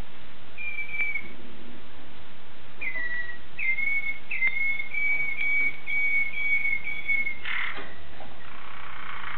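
Waterslager (Malinois) song canary singing: a run of clear, high whistled notes, about two a second, each opening with a quick slide. Near the end it breaks into short rolling trills.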